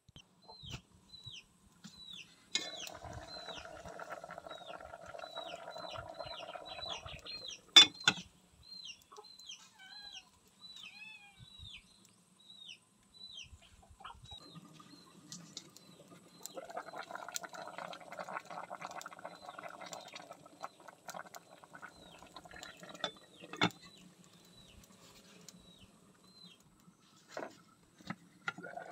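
A bird peeping over and over in short falling notes, about two a second, through much of the first twenty seconds. Under it, in two stretches of several seconds, comes a dense bubbling from a pot of vegetables in coconut milk simmering on a wood fire. A sharp knock about eight seconds in is the loudest sound, with another near the end.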